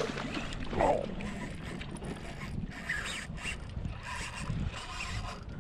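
Fishing reel being cranked with a hooked fish pulling on the line, making a mechanical whirring and clicking. A short, louder sound comes about a second in.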